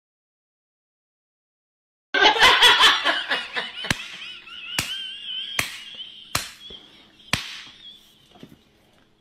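Silence for about two seconds, then a sudden burst of laughter-like voice sounds. These turn into a high, wavering squeal, with a series of sharp slaps roughly a second apart.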